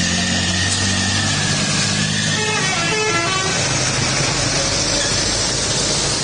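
Truck 'telolet' multi-tone air horn playing a quick run of stepped notes that fall in pitch, about two and a half seconds in. Held horn tones sound before it, and the rumble of vehicle engines in slow traffic runs underneath.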